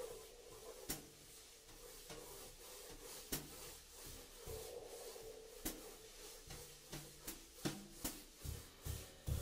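Graphite crayon drawing on a large sheet of paper on an easel: rubbing strokes with irregular sharp ticks and taps, coming more often near the end, over a faint steady hum.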